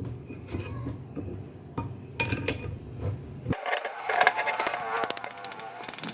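Metal parts and tools clinking and scraping against the cast-iron vise, with a quick run of rapid clicks near the end. A low rumble runs under the first half and cuts off abruptly just past the middle.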